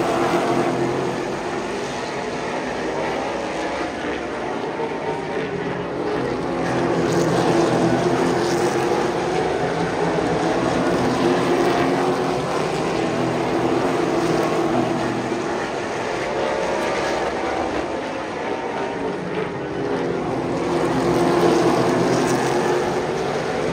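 A pack of super late model race cars running at speed, their V8 engines droning together and rising and falling in loudness as the cars pass.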